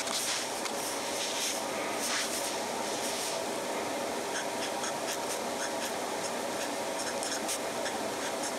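Gold flex nib of a Mabie Todd Swan 3220 fountain pen scratching across Rhodia paper in short, irregular strokes as it writes.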